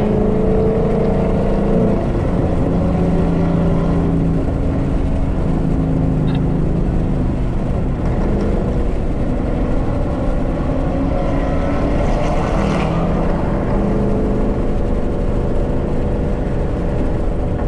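Ford Mustang engine running at a steady cruise, with road and wind noise; its note rises and falls a little several times.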